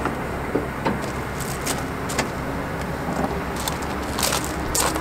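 International DT466 diesel engine idling steadily, with a series of sharp clicks and knocks as the truck's tilt hood is unlatched and swung open.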